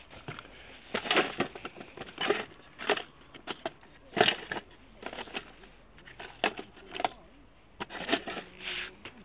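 Close handling noise: irregular crackling, crunching and sharp clicks right at the microphone, scattered through with no steady rhythm.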